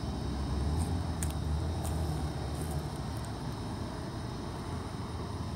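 Steady low drone of a distant motor, with a few faint light ticks in the first seconds.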